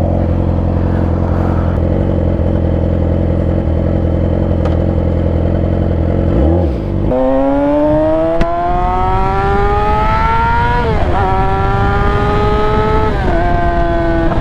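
Yamaha R6 sport bike's inline-four engine idling steadily, then pulling away with the engine note climbing in pitch. It shifts up about eleven seconds in and again near the end, then settles to a steady note.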